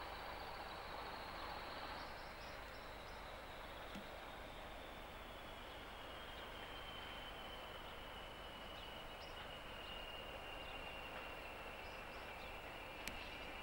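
Pair of Class 20 diesel locomotives approaching at a distance: a high whistle that slowly falls in pitch over a steady haze of engine and background noise. A sharp click comes near the end.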